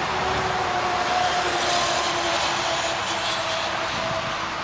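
Machinery running in the background: a steady rushing noise with a faint, slightly wavering hum.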